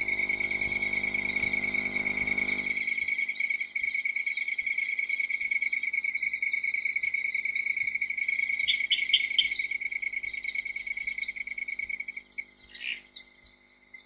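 Crickets trilling steadily at a high pitch; the trill breaks off about twelve seconds in and starts again near the end. A low hum with overtones sounds underneath for the first three seconds, then fades.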